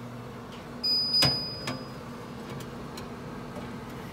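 Ceramic plate set down on the rack of a hot, running oven, with a sharp clack about a second in and a lighter one just after, over the oven's steady low hum. A high electronic beep lasting about a second sounds with the first clack.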